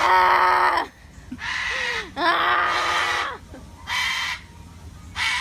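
A farm animal giving five loud, harsh cries in a row, each under a second long with short pauses between them.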